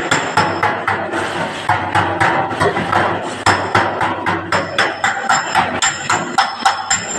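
Body hammer striking a dented sheet-metal car panel against a dolly held behind it: a quick, uneven run of sharp metallic taps, about three or four a second, some with a short high ring.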